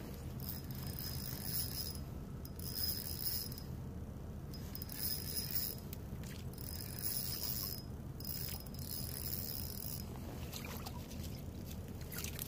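Spinning reel whirring in about five short spurts as it is cranked to bring in a hooked white bass, over a low steady rumble.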